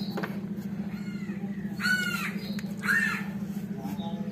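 Crow cawing: two loud caws about two and three seconds in, with a fainter one a second in, over a steady low hum.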